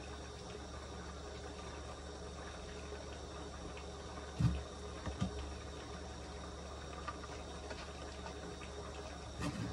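A metal spoon dropping cooked rice into kraft paper bowls: a few soft thuds, the loudest about four and a half seconds in, over a steady low hum.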